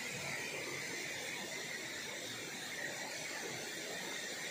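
Small rocky stream flowing over low cascades: a steady, even rush of water.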